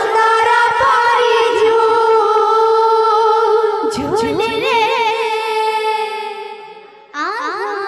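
A girl singing a devotional kirtan into a microphone, holding long notes with a wavering, ornamented pitch. The phrase dies away about six seconds in, and a new phrase starts about a second later.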